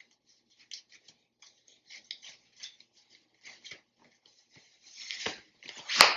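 Necktie fabric rustling in short soft scrapes as fingers work the knot loose, then louder swishes near the end as the tie is slid out from around the shirt collar, the last one sharp.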